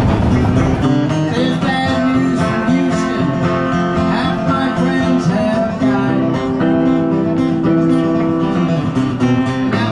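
Country-style acoustic guitar music with quick plucked notes. A low rumble fades out about a second in.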